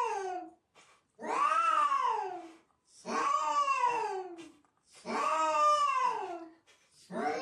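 A cat yowling over and over: long drawn-out calls of about a second and a half each, every one rising then falling in pitch, with short gaps between them, four in full and another starting near the end.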